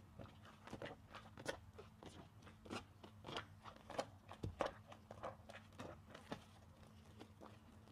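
Soapy car sponge squeezed by hand, its lather giving off irregular wet crackling and squishing, several small pops a second.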